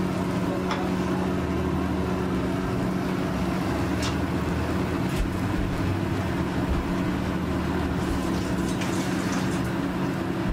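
Steady mechanical hum with an even hiss over it, and a few faint light clicks.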